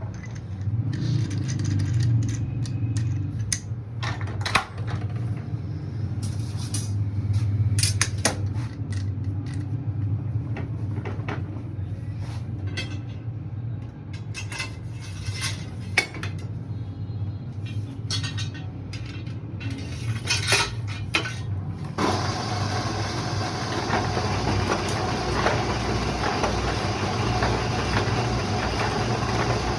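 Lathe running with a steady low hum while steel wire and hand tools clink and click against metal as a spring is wound. About two-thirds of the way through, the sound changes to a denser, brighter steady machine noise.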